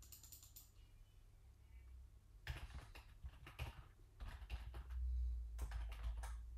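Typing on a computer keyboard in short runs of keystrokes. A quick flurry comes at the very start, then bursts of typing about two and a half seconds in, after four seconds, and near the end.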